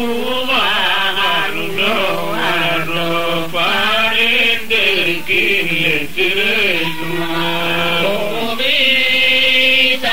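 A male voice chanting a slow melody in long, drawn-out notes that slide up and down in pitch.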